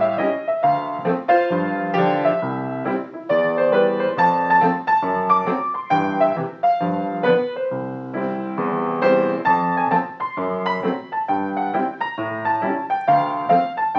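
Background music: a piano melody played over chords at a gentle, steady pace.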